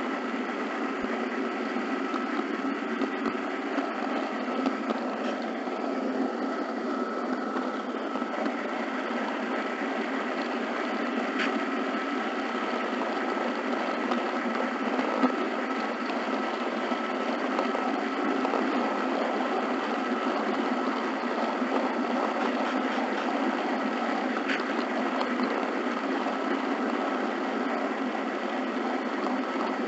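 HO scale model train running steadily along the track: a continuous mechanical whir and rattle from its small motor, gears and wheels, with a faint steady whine and an occasional light tick.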